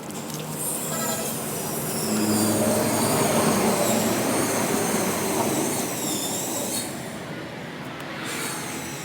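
Electric power tool running with a high-pitched whine whose pitch wavers as the load changes, typical of a pad working a headlight lens. The high whine drops out about seven seconds in and the tool picks up again about a second later.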